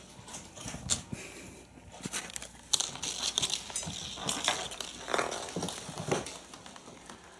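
Kittens playing on a wooden floor: an irregular patter of small taps, knocks and scuffs from paws and toy balls, with some rustling.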